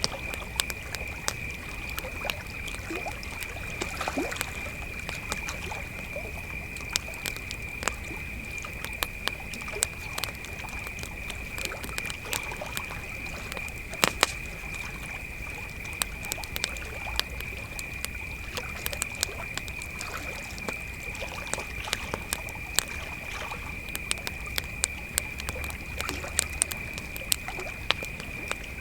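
Crickets trilling in one steady unbroken high tone, over a campfire crackling with frequent sharp pops and snaps. The loudest pop comes about halfway through.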